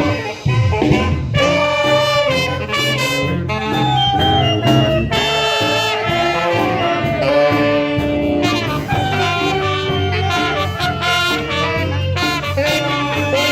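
Brass band playing a lively tune, with melody lines over a steady bass.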